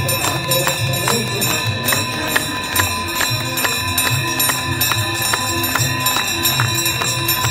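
Devotional aarti music: bells and cymbals ringing and struck on a steady beat over a pulsing drum.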